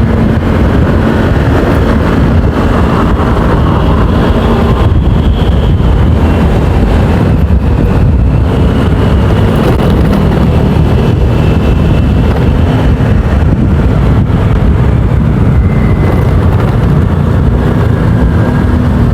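Motorcycle riding sound: the bike's engine running under way with wind buffeting the helmet microphone, a loud, steady rumble with no break.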